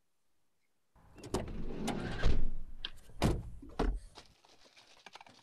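About a second of dead silence, then rustling, bumps and thumps from people moving hurriedly close to their microphones. The noise fades out near the end.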